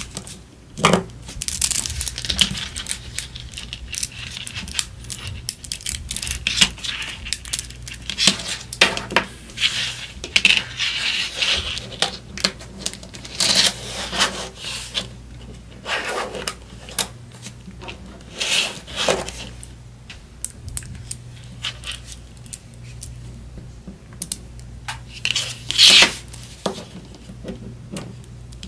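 Small neodymium magnetic balls clicking and snapping together as they are pressed, rolled and wrapped into shape by hand: irregular clicks and short rattling bursts throughout.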